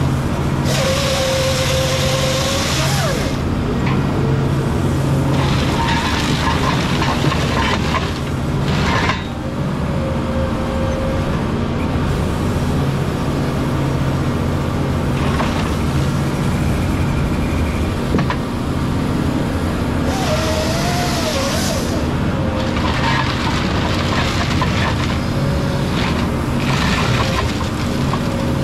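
Cat 558 forest machine's diesel engine running steadily with its hydraulics working the SouthStar 600 processor head, a wavering whine over the engine and several bursts of hiss lasting a second or more.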